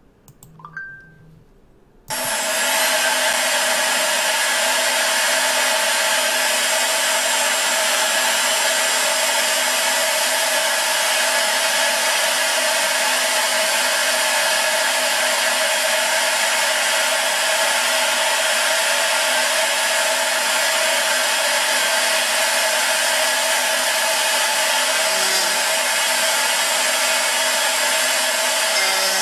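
A CNC router spindle running steadily while its end mill slots an aluminum plate: a constant high whine over a dense cutting hiss, holding speed without bogging down. It starts abruptly about two seconds in, after a single mouse click.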